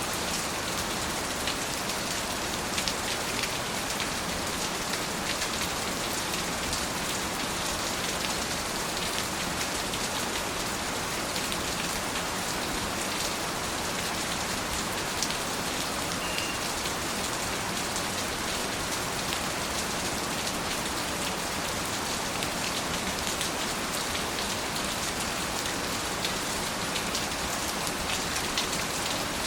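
Steady rain falling on a surface, an even hiss with scattered distinct drop ticks.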